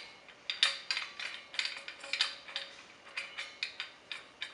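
Metal fittings of a CO2 regulator and its brass bubble counter being twisted together by hand: an irregular run of short metallic clicks and scrapes.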